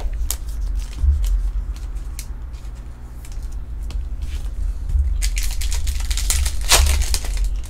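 A Topps Chrome trading-card pack's wrapper being torn open and crinkled: a dense crackling tear lasting about two seconds near the end, after a few light clicks of cards being handled, over a steady low hum.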